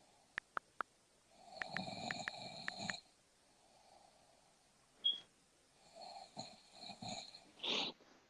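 A sleeping woman snoring, with a rattling snore about one and a half to three seconds in and a softer one around six to seven seconds, then a short, loud puff of breath near the end. Three sharp clicks come before the first snore.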